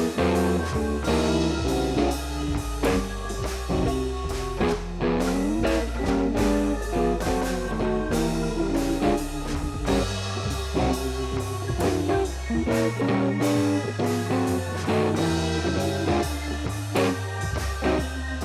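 Instrumental background music led by guitar, with bent notes over a steady bass line and drums.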